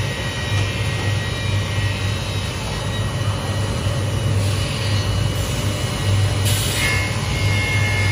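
Automated glass-processing line conveyors and machinery running: a steady mechanical drone with a low hum that swells and fades roughly once a second. About six and a half seconds in there is a short burst of hiss, followed by a steady high whine.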